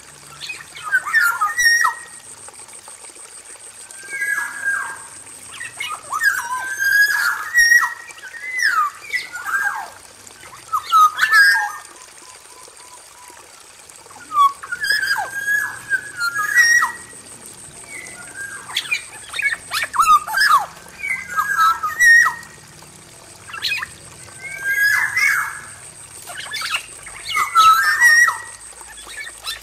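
Male black-naped oriole singing: short, varied whistled phrases in bouts a second or two long, repeated every couple of seconds. A faint steady high whine sits behind it.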